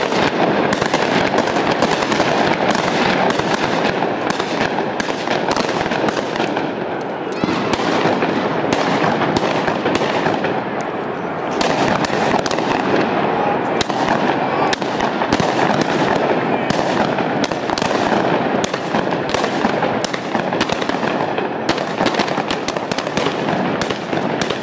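Firecrackers going off continuously in a long, dense string of sharp cracks and bangs, easing briefly twice, with crowd voices underneath.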